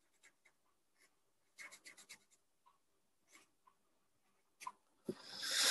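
A felt-tip pen scratching across paper in short strokes, drawing a small diagram and letter, faint, with a louder rush of hiss near the end.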